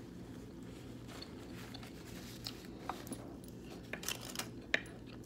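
A person chewing a sandwich close to the microphone, with scattered sharp mouth clicks that grow louder and closer together in the last second or so, over a steady low hum.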